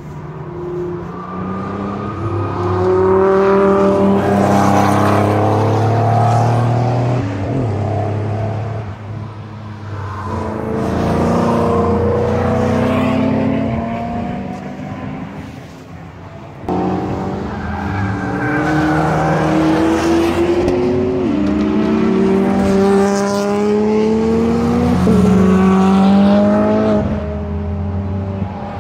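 Several high-performance sports cars accelerating hard on a race circuit, their engine notes climbing through the revs and dropping back at each upshift, one car overlapping the next as they pass. The sound jumps suddenly louder a little over halfway through.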